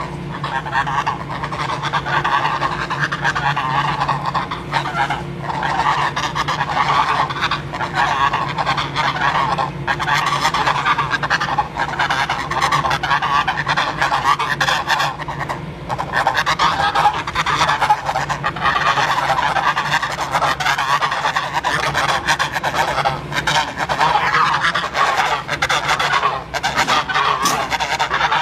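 Geese honking continuously, many calls overlapping without a break.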